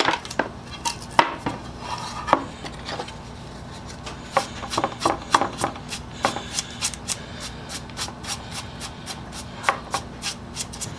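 Paintbrush bristles swept briskly back and forth over a sheet of worn 80-grit sandpaper, brushing off dust: a quick run of short scratchy strokes, several a second. Before the brushing starts there are a few sharp knocks of handling.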